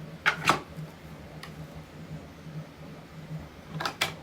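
Hard 3D-printed plastic parts clicking and knocking together as they are handled and fitted: two quick pairs of clicks, one just after the start and one near the end, over a faint steady low hum.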